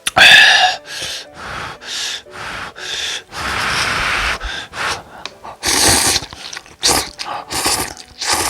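Close-miked slurping of instant cup noodles: a quick series of short slurps, one long drawn-in slurp about three to four seconds in, and the loudest slurp at the very start.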